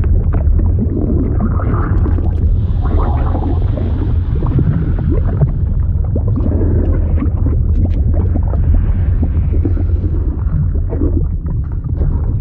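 Fluid sound effect: a deep, steady rumble with gurgling and bubbling, like liquid churning under water.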